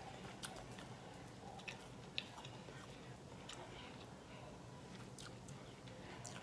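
A person biting and chewing smoked turkey leg meat close to the microphone, faint, with scattered short wet clicks and smacks of the mouth over a low steady hum.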